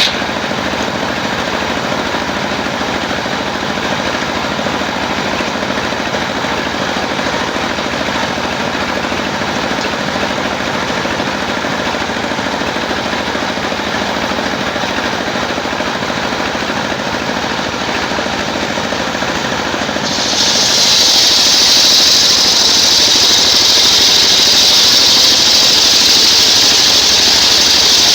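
Engine-driven circular sawmill running steadily. About twenty seconds in the blade bites into coconut timber, and a loud, high-pitched cutting noise sets in abruptly over the engine.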